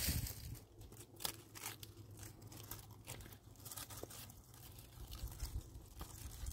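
Faint, scattered crunches and snaps of dry twigs and brush being handled on stony ground.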